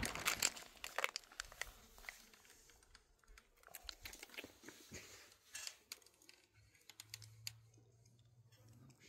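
Faint crinkling and rustling of foil food pouches with scattered small clicks, as a bagged pasta meal is handled and mixed; the noises are densest in the first two seconds and thin out after.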